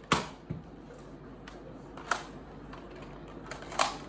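Nerf AccuStrike Alphahawk blaster being fired and handled: a sharp plastic clack right at the start, then a few lighter clicks spread over the next few seconds as the blaster is worked and primed.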